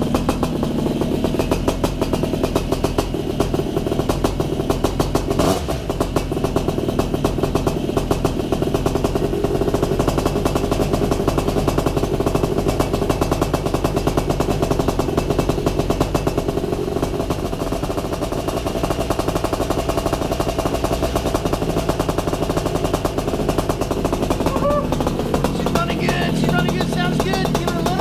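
Air Conception Tornado 280 paramotor's two-stroke engine running steadily at low throttle during its first warm-up after fuelling.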